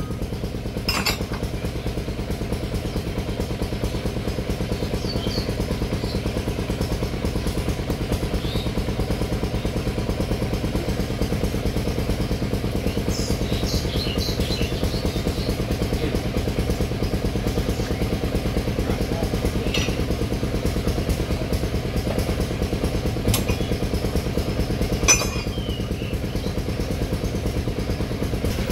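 An engine running steadily at a constant speed, with a few sharp metal clinks over it.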